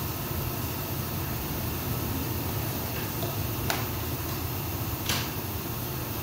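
Steady low room hum, like air conditioning, with two short sharp clicks, one past the middle and one about a second and a half later.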